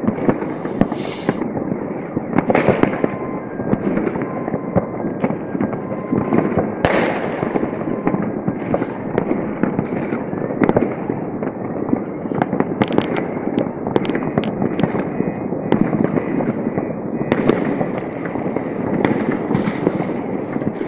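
Citywide New Year fireworks: a dense, continuous crackle of many distant and nearer salutes and firecrackers, with a few louder bangs standing out.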